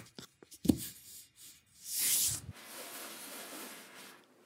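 A hand rubbing over surfaces: a short, loud swish about two seconds in, then a softer, steady rustle of fingers sliding over a crinkled paper lampshade.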